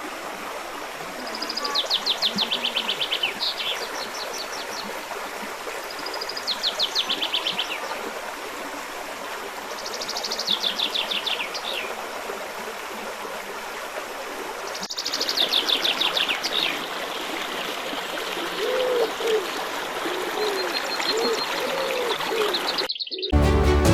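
Forest stream running steadily, with a songbird repeating a fast, high, descending series of notes four times, about every four to five seconds, and a few lower calls near the end.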